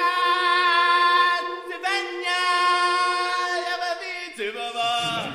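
A cappella singing: a voice holds one long high note for about four seconds, with a brief re-attack about two seconds in. It drops to a lower note near the end.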